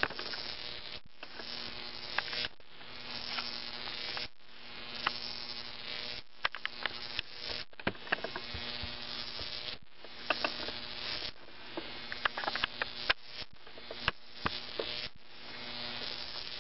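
Jacob's ladder high-voltage arc (15,000 volts) buzzing with sharp crackles between two wires. The buzz cuts out briefly every second or two and starts again, as the arc climbs to the top, breaks and restrikes at the bottom.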